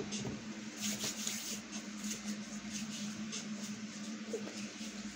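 Room tone: a steady low hum, with a few faint soft clicks in the first two seconds.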